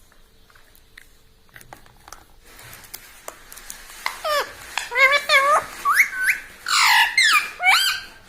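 Indian ringneck parrot calling: a run of short, sharp calls sliding up and down in pitch, starting about four seconds in, after a few faint clicks.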